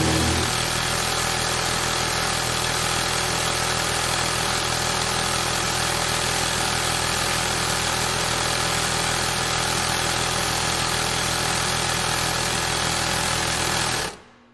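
Industrial sewing machine running steadily at speed. It cuts off abruptly about fourteen seconds in.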